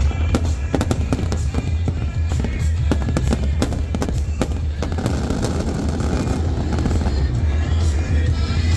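Fireworks popping and crackling in rapid succession over music with a steady low bass; the crackles thin out about five seconds in.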